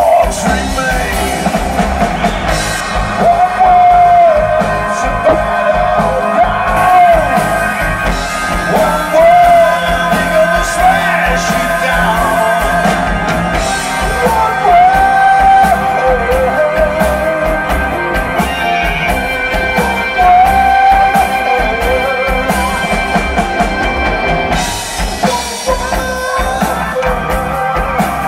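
Live rock band playing loudly through a PA: drums, bass guitar and keyboards, with held, wavering singing over them.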